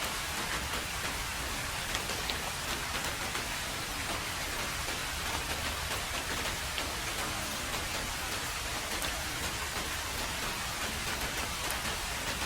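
Heavy rain falling steadily on a road: an even, dense hiss with scattered sharp ticks of single drops.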